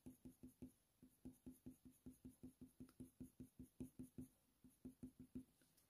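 Faint, quick, short strokes of a Polychromos colour pencil on hot-press watercolour paper, about five a second, flicking in short fur marks. A brief pause comes just before one second in, and the strokes stop shortly before the end.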